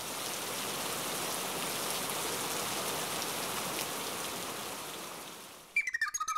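Rain sound effect: steady rain falling with faint drips, fading in and then fading away. Near the end a few short plucked notes begin.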